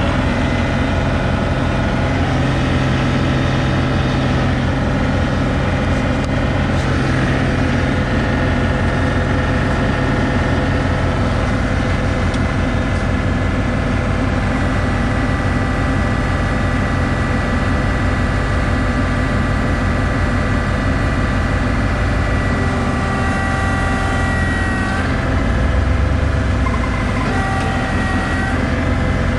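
Tractor engine running steadily, with a brief change in pitch and a deeper surge near the end.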